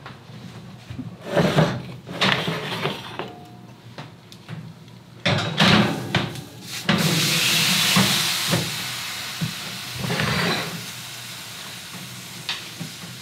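Metal baking trays and oven racks knocking and scraping as trays of vegetables are handled and loaded into the oven. A rushing hiss starts suddenly about seven seconds in and fades away over the next few seconds.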